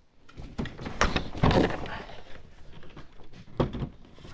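Knocks and clunks of heavy weights being handled and set on a freshly glued wooden chair to clamp it: a cluster of knocks about a second in and another one near the end.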